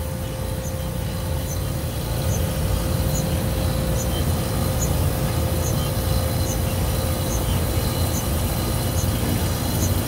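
Chilled-water circulating pump and MRI helium compressor running steadily: a low hum with one steady tone, and a faint high chirp from the helium compressor repeating about every three quarters of a second.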